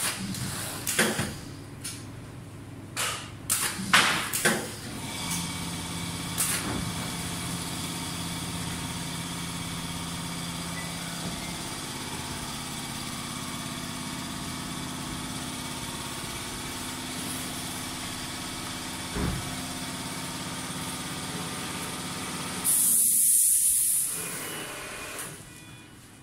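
High-frequency PVC film welding machine running with a steady hum of several held tones, after a few sharp knocks and clatters in the first five seconds as the soft film is handled. Near the end comes a loud hiss of air lasting about a second and a half, and then the hum dies away.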